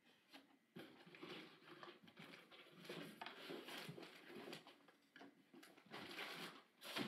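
Faint rustling and scraping of cardboard boxes and packaging being handled and rummaged through, starting about a second in, with a sharper knock near the end.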